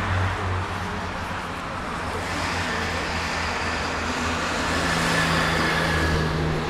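Motorway traffic: US Army military trucks and cars passing on the road below, a steady engine drone under tyre noise, with a low engine hum growing stronger near the end.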